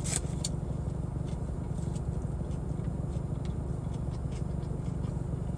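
Steady low rumble inside a parked car left running with the air on, which the owner takes to be the air conditioning. A few faint short clicks sound over it.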